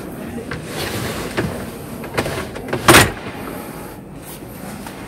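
Pleated folding bathroom door of a camper van being slid along its track, with a few light knocks and one loud clack about three seconds in.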